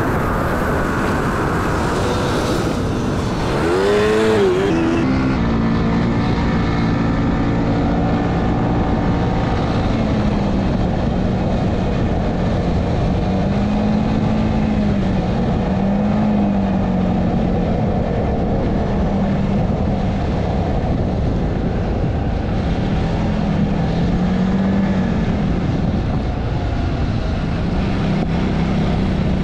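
ATV engine heard from the rider's seat while riding. It revs up briefly about four seconds in and drops back, then runs at a steady cruising pitch that rises and falls gently with speed.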